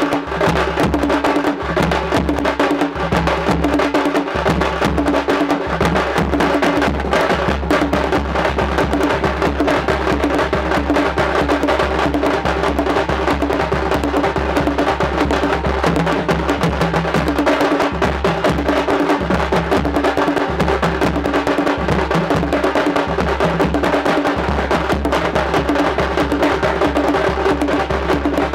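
Thappattai (parai) frame drums and smaller stick-beaten drums playing together in a fast, steady, repeating rhythm, with no singing.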